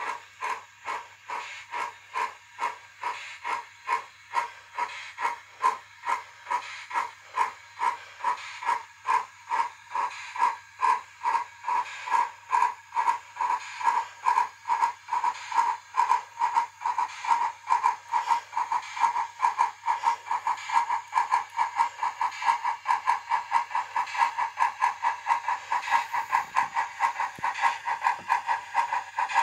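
Model Garratt steam locomotive's sound decoder playing steam exhaust chuffs through its onboard speaker: an even beat of hissing chuffs that quickens slightly as the locomotive runs, over a faint steady hum.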